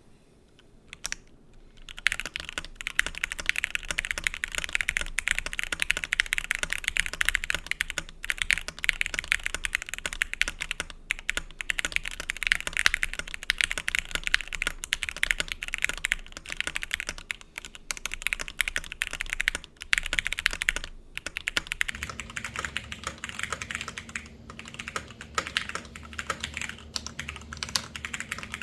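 Fast, continuous typing on a Cannonkeys DevastatingTKL mechanical keyboard with Gateron Milky Yellow Pro V2 linear switches on an FR4 plate, starting about two seconds in.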